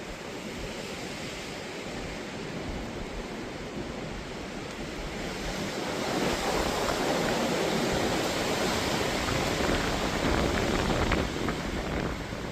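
Strong wind blowing and buffeting the microphone. A gust builds about halfway through, holds louder for several seconds and eases off near the end.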